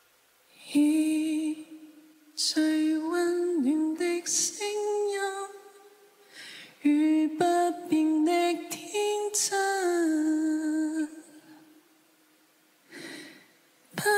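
A woman singing a melody with no accompaniment, in short phrases of held and gliding notes broken by pauses.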